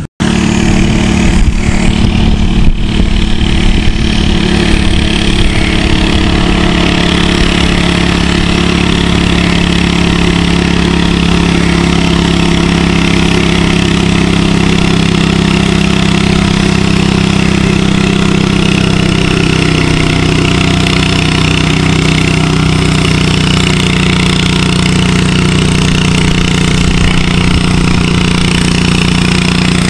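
Modified pulling garden tractor's engine running loud and steady under load as it drags a weight-transfer sled, its pitch holding nearly even.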